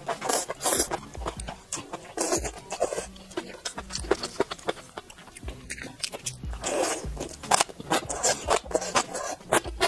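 Close-up eating sounds: wet slurping and many sharp, crisp crunches as strips of spicy skewered food are sucked in and chewed. Near the end the crunching is gongcai (celtuce stem), which is very crisp.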